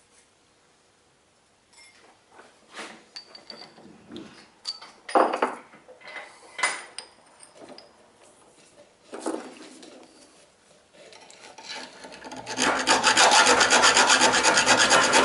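Scattered metal clinks and knocks as a steel spacer and bolt are handled and clamped in a bench vice. About twelve seconds in, a hand file starts rasping on the metal in fast, even strokes, filing off a lip that makes the bolt stick in the bush.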